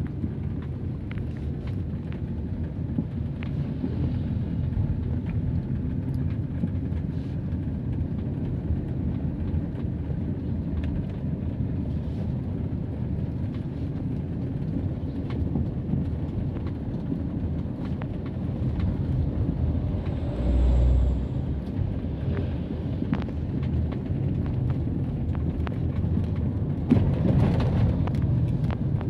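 Car driving slowly along a village road, heard from inside the cabin: a steady low engine and tyre rumble. A brief deep thump comes about two-thirds of the way through, and a louder, fuller rush of noise comes near the end.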